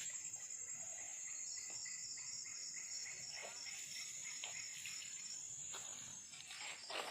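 Insects trilling steadily in high, continuous tones, with scattered soft clicks and rustles and a brief louder noise near the end.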